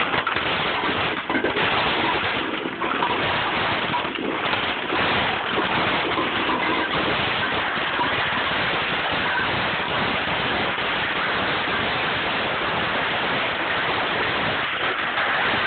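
Twin-shaft shredder's hooked cutter discs crunching and tearing through a computer monitor's plastic housing over the machine's steady running noise, with sharper cracks in the first few seconds.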